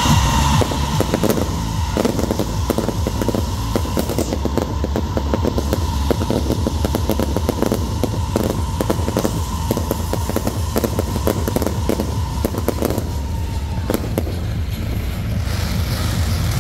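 Fireworks show: shells launching and bursting in quick succession, a dense run of crackling pops over a steady low rumble, with a steady high whistle-like tone that stops about fourteen seconds in.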